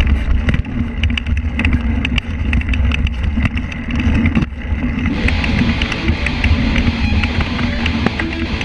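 Mountain bike riding fast over a dirt trail: wind noise on the camera microphone and the bike's rattle and clicks over the rough ground, with guitar-based rock music mixed in underneath. The trail noise gets brighter and harsher about five seconds in.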